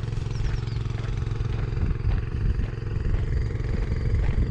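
An engine running steadily at a constant speed, with an even pulsing rumble.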